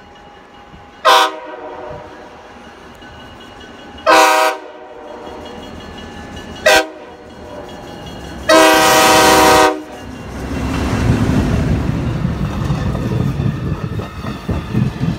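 Cuyahoga Valley Scenic Railroad 6771, an FPA-4 diesel locomotive, sounds its horn four times in the long-long-short-long grade-crossing pattern, the third blast short and the last the longest. It then passes close by: the engine's rumble and the rolling noise of the passenger coaches build and carry on.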